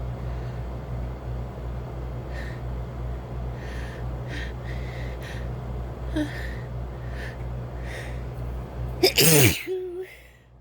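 A person sneezing once, loudly and forcefully, about nine seconds in, after a run of short breathy in-breaths as the sneeze builds.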